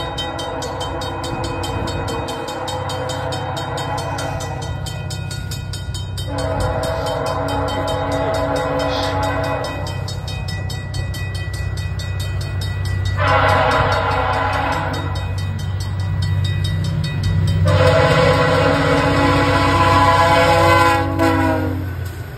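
Diesel locomotive air horn on a VIA Rail F40PH-3 sounding the grade-crossing signal, long, long, short, long, each blast louder as the train approaches. Beneath it is the low rumble of the diesel engine and the steady ringing of a Safetran mechanical crossing bell.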